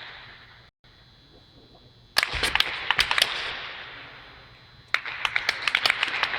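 Two flurries of rapid sharp cracks, about two seconds in and again near the end, each over a hiss that slowly fades.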